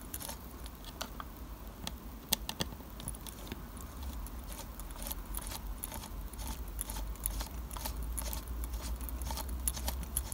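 A pin vise with a fine 0.6 mm drill bit being twisted by hand into the wall of a small card-and-plastic model building: a run of small, irregular clicks and scratchy ticks, one louder click about two seconds in, over a low steady hum.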